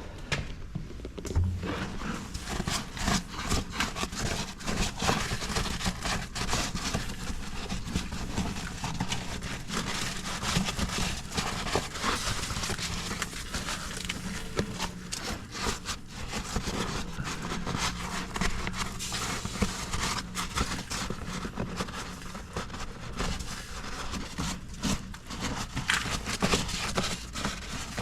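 Broom brushing and scraping packed snow off a pickup truck: a long run of quick, irregular scratchy strokes.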